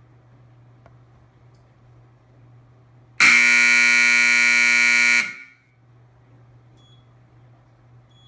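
Daktronics BB-2130 basketball shot clock horn sounding one loud, steady blast of about two seconds as the shot clock runs out at zero.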